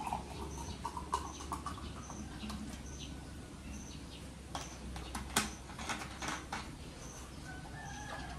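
Fizzy soft drink poured from a plastic bottle into a glass of ice, gurgling briefly at the start. It is followed by scattered fizzing crackles and small clicks as the bottle and its cap are handled and screwed shut. A faint short high peep repeats about once a second.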